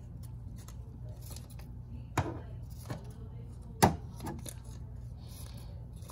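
Scissors snipping paper into strips: a few sharp snips, the loudest about two and four seconds in, with brief paper rustling between them.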